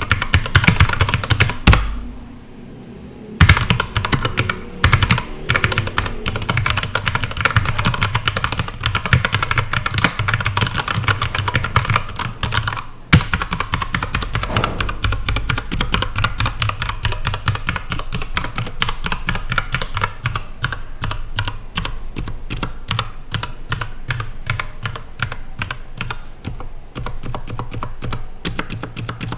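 Keychron K8 mechanical keyboard with brown switches being typed on fast and continuously, a dense run of key clicks and clacks. There is a short pause about two seconds in.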